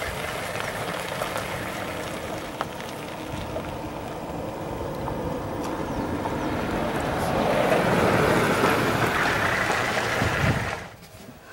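Vehicle driving, a steady rumble of engine and road noise mixed with wind, growing louder near the end and then cutting off suddenly.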